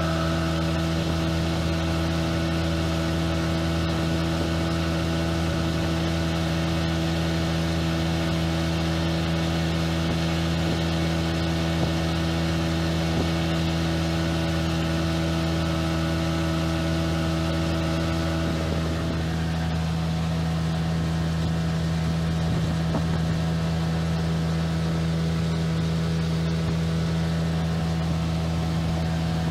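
1997 Johnson 25 two-stroke outboard motor running steadily at cruising speed, pushing a small aluminium fishing boat, with wind and water rushing past the hull; its note changes slightly about two-thirds of the way in.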